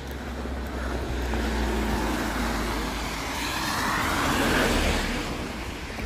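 A vehicle passing on a wet, slushy road: tyre hiss and engine swell to a peak about four to five seconds in, then fade.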